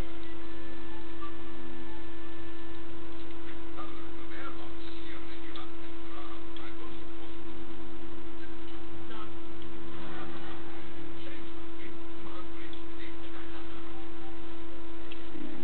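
A steady electrical hum holding one tone throughout, with a television playing faintly behind it: voices and music come and go in the middle.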